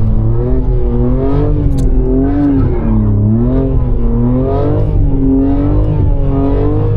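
BMW G80 M3 Competition's twin-turbo straight-six running under throttle, its pitch swinging up and down about once a second as the revs rise and fall on snow.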